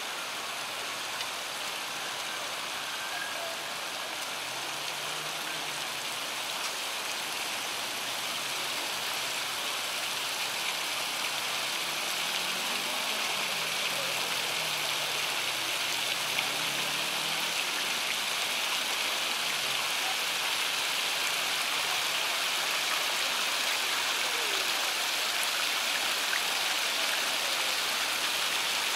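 Fountain jets splashing into a pool, a steady rush of water that grows slowly louder.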